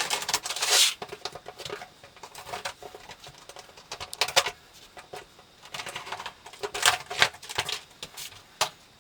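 Schluter Ditra Heat plastic membrane panels being handled and laid on a plywood subfloor: a rustle near the start, then irregular taps, clicks and light knocks as the panels are set down and pushed into place.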